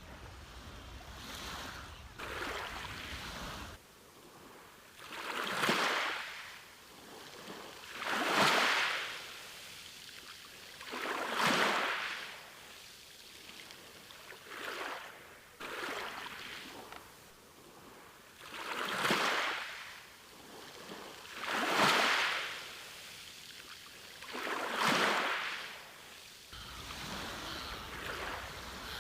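Sea waves washing onto a beach, each one swelling to a hiss and fading, about every three seconds.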